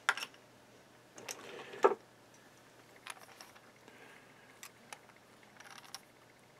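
Small screwdrivers clicking and knocking against a small plastic cooling fan as a split lock washer is worked onto its shaft. A sharp click comes right at the start and the loudest knock just before two seconds in, followed by scattered faint ticks and scrapes.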